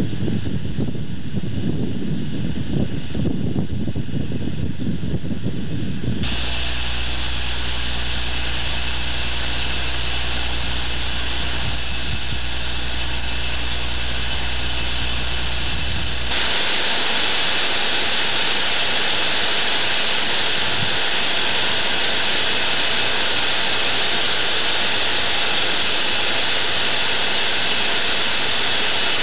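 Wind buffeting the microphone at first. Then a steady mechanical whine and rush from a warship's machinery, heard on deck at sea, with a low hum. The low hum drops out about sixteen seconds in, leaving high whistling tones that are louder.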